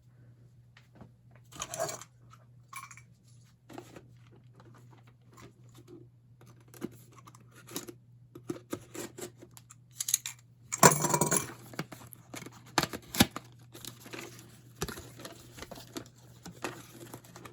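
Cardboard product box and its packaging being opened by hand: scattered clicks, rustling and tearing, with one louder rip about eleven seconds in. A steady low hum runs underneath.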